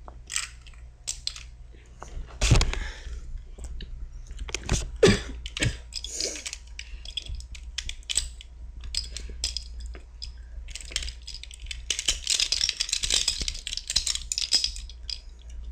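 Plastic Rubik's Cube being twisted apart, its layers clicking and rattling as the pieces work loose and fall off. There are a few louder knocks about 2.5 and 5 seconds in, and a dense run of clicking near the end.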